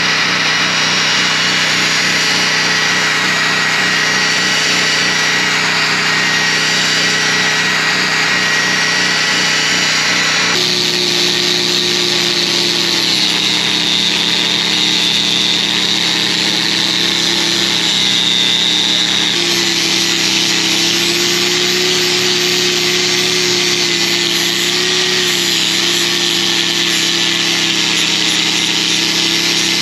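Power grinder running continuously on metal, its motor pitch dropping to a new level about ten seconds in and wavering a little as it is pressed into the work.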